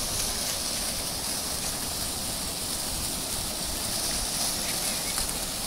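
Public fountain running: water jets spouting and splashing back into the basin, with water spilling over low cascade walls, a steady rushing splash.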